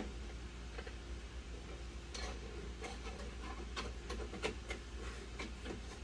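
Dialysis machine running: sharp irregular clicks, roughly two or three a second, over a steady low hum.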